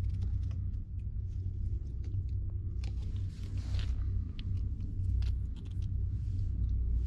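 Steady low rumble inside a car cabin on the road, with scattered light clicks and rustles of things being handled.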